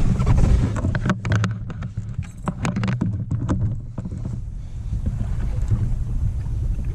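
Steady low rumble of a boat, with wind on the microphone. Between about one and three and a half seconds in there is a run of knocks and clicks from handling on the boat.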